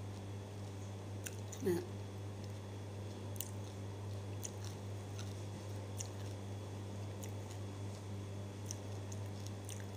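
A person chewing and biting crisp food, with small crunches and mouth clicks scattered through, over a steady low hum. A brief falling 'mm' of voice comes a little under two seconds in.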